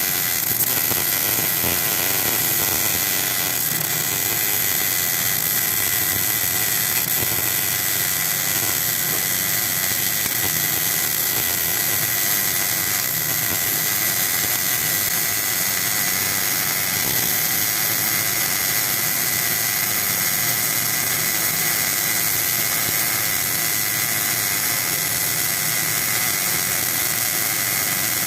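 MIG welder running a continuous bead on a refrigerator compressor's steel housing: a steady hiss with a high-pitched whine held at an even level throughout.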